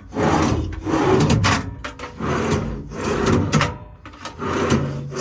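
Metal tool drawers in a service truck body being slid out and pushed back in on their runners, about three long rolling strokes. The slides run fairly smooth.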